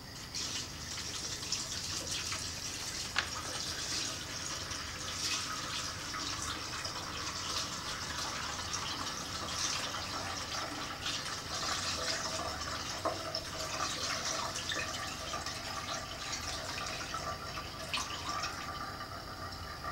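Diesel fuel poured slowly from a glass jug into a Racor fuel filter funnel and running through into a glass flask below, a steady trickling pour with a few small clicks; the funnel holds back any water as the fuel passes.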